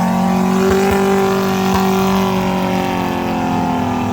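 Off-road 4x4's engine revved hard and held at high revs, its pitch sagging slightly as it takes the load.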